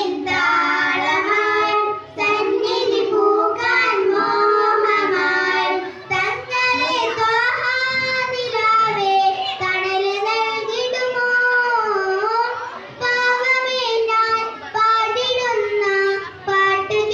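A child singing solo in a high voice, an ornamented melody with frequent pitch glides, in phrases broken by short pauses.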